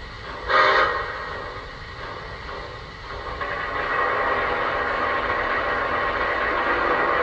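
Steam locomotive sound effects from the RailSounds speaker of Lionel's O-scale Polar Express model locomotive: a short burst of hiss about half a second in, then a steady hiss of released steam that sets in at about three and a half seconds and holds.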